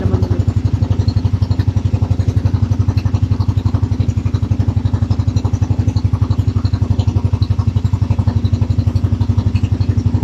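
Small fishing boat's engine running steadily under way, with a rapid, even chugging beat.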